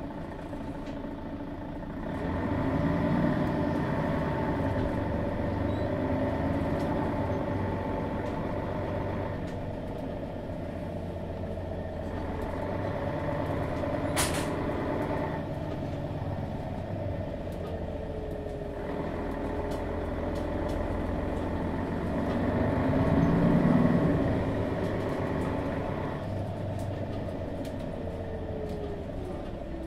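Mercedes-Benz Citaro G articulated bus's Daimler OM 457 hLA diesel engine running under load as the bus drives. The engine note rises as it accelerates, about two seconds in and again near the end, with a short sharp hiss about halfway through.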